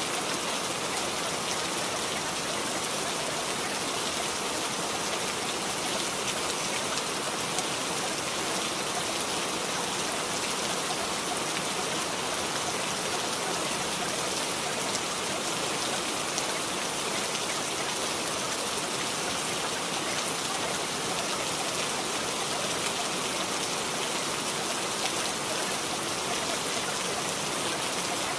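Steady rain sound, an even hiss of falling rain that does not change.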